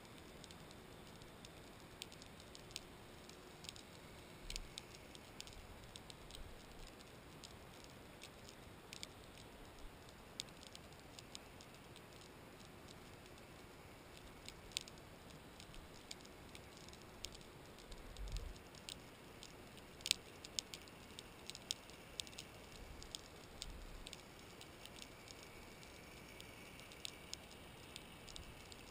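Faint underwater crackle: sparse, irregular sharp clicks, a few a second, over a faint steady hiss, with one brief low thump about two-thirds of the way through.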